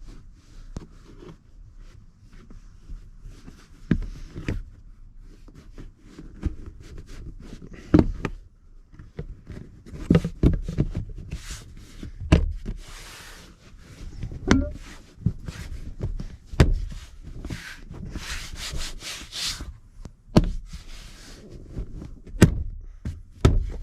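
A trim cover being handled and pressed back into place around a pickup's seatbelt retractor: irregular clicks and knocks with rubbing and scraping between them.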